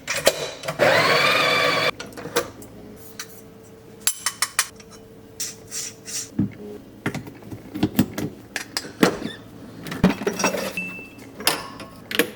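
Clinks, taps and knocks of espresso gear and a glass coffee-bean container being handled. About the first two seconds are taken up by a louder sound that rises in pitch; after it come scattered sharp clicks.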